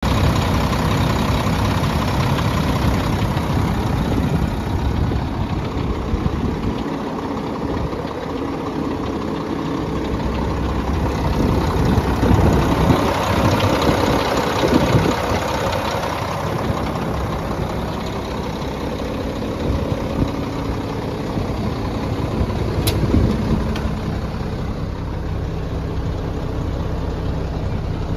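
Turbocharged diesel engine of a Mack refuse truck idling steadily, heard close up at the open engine bay. One brief sharp click comes about three-quarters of the way through.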